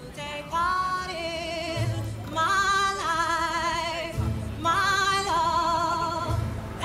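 Music with a singing voice holding long notes with a wide, wavering vibrato, each note sliding up into pitch, over a few low thuds.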